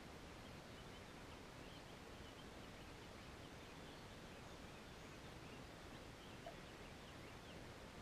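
Near silence: a faint, steady outdoor background hiss, with scattered faint high chirps through most of the stretch.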